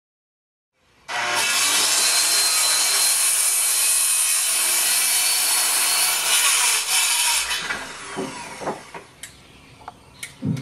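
A saw cutting through a wooden board: a loud steady cut that starts suddenly about a second in and dies away after about six seconds, followed by a few light knocks.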